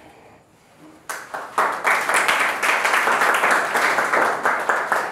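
A group of people clapping: the applause starts about a second in, dense and steady, and dies away near the end.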